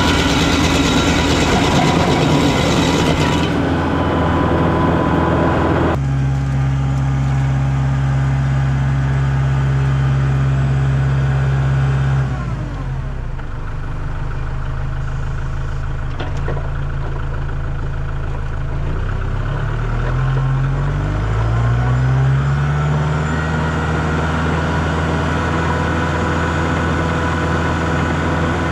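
A tractor engine drives a Woodland Mills WG24 PTO stump grinder, whose wheel is grinding into a stump for the first few seconds. The engine then runs steadily, drops in pitch about twelve seconds in, and rises again around twenty seconds.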